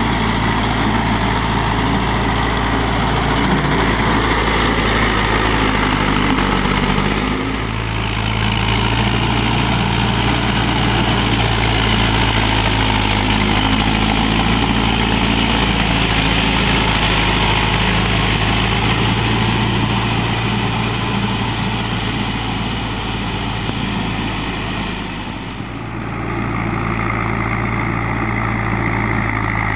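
Mahindra Yuvo 575 tractor's four-cylinder diesel engine running steadily under load while driving a rear rotary tiller through flooded paddy mud. The level dips briefly twice.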